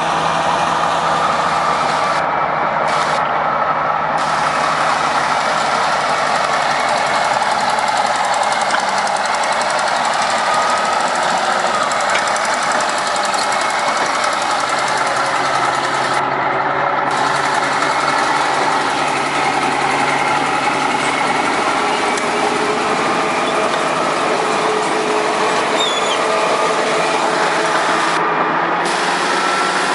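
Heavy construction machinery running steadily, a loud diesel engine drone with a rattling, vibrating edge.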